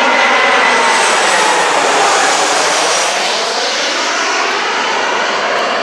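Jet airliner on landing approach passing low overhead: a loud engine rush with whining tones that slide slowly down in pitch as it goes by, easing off toward the end.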